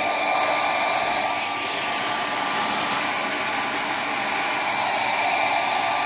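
BPL foldable hair dryer running, a steady rush of fast-blown air with a faint, even motor whine.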